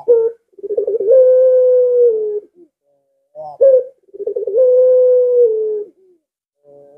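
Puter (domesticated Barbary dove) cooing: twice, a short rising note followed by a long, drawn-out coo that holds steady and dips slightly at the end. This is the long arched 'lengkung' coo prized in puter pelung birds.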